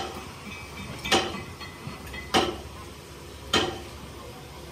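Metal striking metal in a foundry: sharp clanks at an even pace, about one every second and a quarter, each ringing briefly, over a steady low hum.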